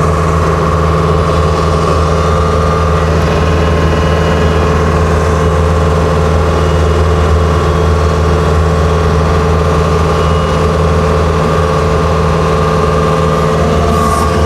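Skid steer loader engine running steadily after a cold-weather start, holding an even speed with no revving.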